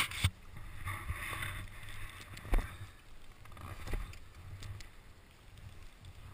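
Skis scraping over lumpy, chunked-up snow, with a steady low rumble and several hard knocks as they hit clumps, the loudest about two and a half seconds in and another near four seconds.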